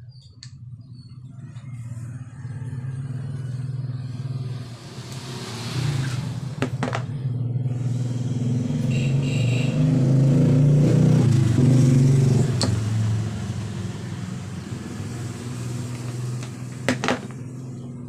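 A low engine rumble that swells for several seconds, peaks a little past the middle, then fades away, like a motor vehicle passing by. A few sharp clicks from a small plastic adapter and its wire being handled sit on top.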